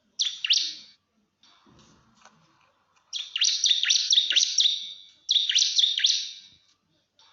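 Bar-winged prinia (ciblek) singing its rapid challenge song to a rival: a short burst of quick, high, downward-sweeping notes, then two longer runs of the same fast chatter about three and five seconds in.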